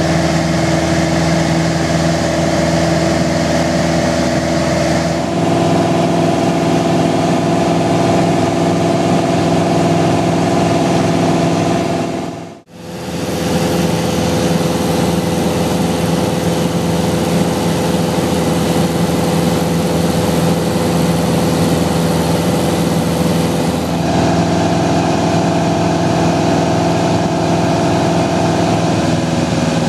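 Piper Archer II's four-cylinder Lycoming engine and propeller droning steadily in flight, heard from inside the cabin. The drone shifts slightly in pitch a few times and briefly fades out and back in about twelve seconds in.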